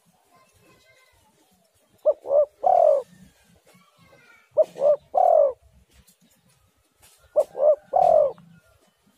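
Spotted dove cooing: three calls about two and a half seconds apart, each two short coos followed by a longer, drawn-out coo.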